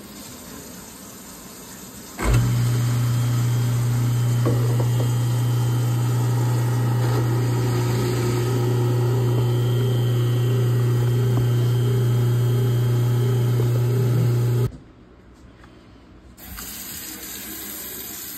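Kitchen sink garbage disposal switched on about two seconds in, its motor running with a loud, steady hum and water rushing through, then cutting off abruptly. Near the end, tap water hisses into the sink.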